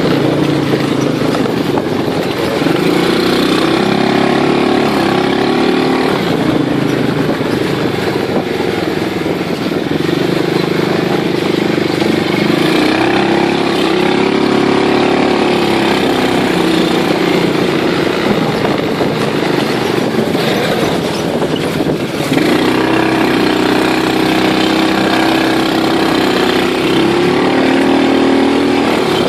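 Small single-cylinder engine of a 125 cc-class machine running under way, its pitch rising and falling several times as the throttle is opened and eased. The level dips briefly a little past two-thirds of the way through.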